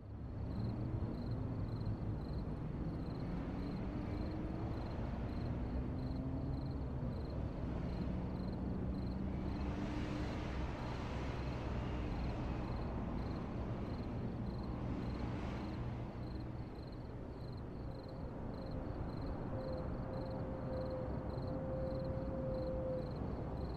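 Steady low traffic rumble with the pitch of engines gliding up and down, and vehicles passing about ten and fifteen seconds in.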